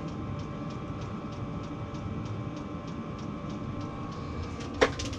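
Diesel air heater running in a closed ice-fishing shack: a steady fan hum with its fuel pump ticking about three times a second. A single sharp click near the end.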